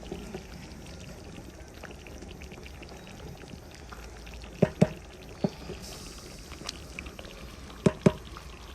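Steady hiss of food cooking on the stove, broken by a few sharp knocks, two quick pairs about five and eight seconds in.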